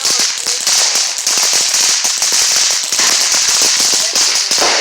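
Consumer fireworks going off: a steady hiss with a dense, rapid crackle of small pops.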